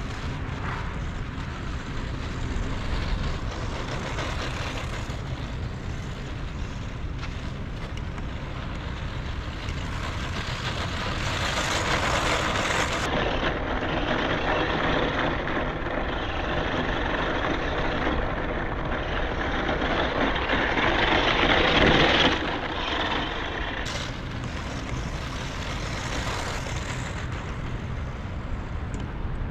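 Losi Mini JRXT 1/16-scale RC truck running on a dirt field: its brushed electric motor and tyres on loose dirt, getting louder from about ten seconds in to a peak, then dropping off suddenly a little past twenty seconds. Wind rumbles on the microphone throughout.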